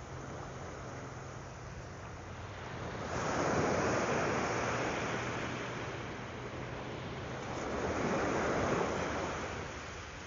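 Ocean waves breaking on a sandy beach: two waves rush in and wash out, the first about three seconds in and the second near the end.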